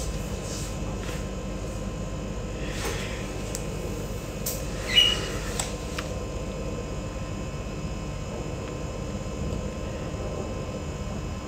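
Steady low background hum, with a few faint clicks and one brief, sharper sound about five seconds in.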